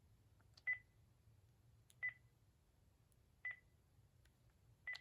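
Panasonic KX-TG2620 cordless phone handset keypad: four button presses, each a small click followed by a short, high single-pitch key beep, about a second and a half apart.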